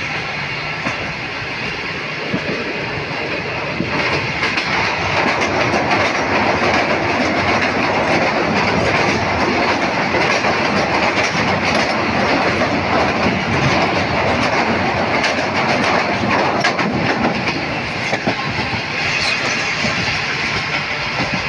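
Millat Express passenger train running at speed, heard from inside a coach: a steady rush of wheels on track with scattered clicks of the wheels over the rails. It grows louder about four seconds in.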